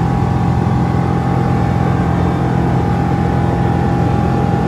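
Microlight aircraft's engine and propeller running steadily at climb power, heard from inside the cockpit as the plane climbs away after takeoff.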